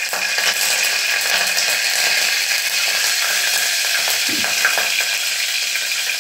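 Curry leaves and whole spices (cinnamon, bay leaf) sizzling steadily in hot coconut oil in an open pressure cooker pot, the tempering stage of a gravy.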